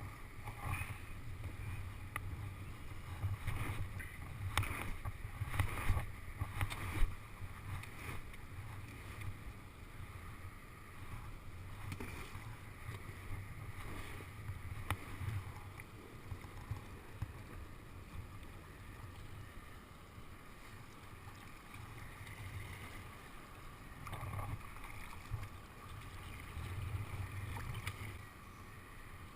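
Kayak paddling on moving river water, with a steady rush of water and a low wind rumble on the microphone. Sharp paddle knocks and splashes cluster in the first several seconds and are the loudest part.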